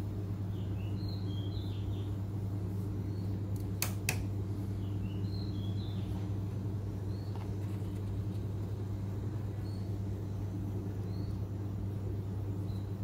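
Steady low electrical-sounding hum with faint, scattered bird chirps. Two sharp clicks come close together about four seconds in.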